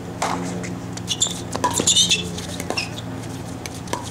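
Pickleball doubles rally: sharp pops of paddles striking the plastic ball, several in quick succession, with sneakers squeaking on the hard court about two seconds in. A steady low hum runs underneath.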